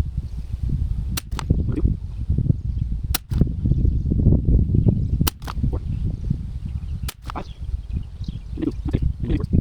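Sharp cracks of .22 rimfire rifle shots from an Anschutz 1761, coming as four pairs of reports about two seconds apart. A steady low wind rumble on the microphone runs underneath.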